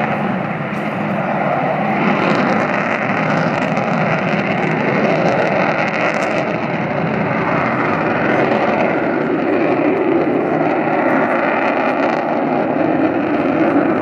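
Avro Vulcan XH558 flying its display, its four Olympus turbojets making loud, steady jet noise.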